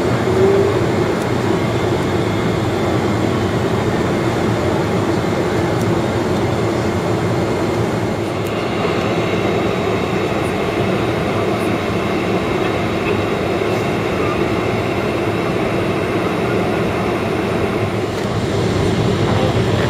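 Steady engine and airflow noise inside the cabin of a Boeing 767-300ER on approach, with a faint high whine that sets in about eight seconds in.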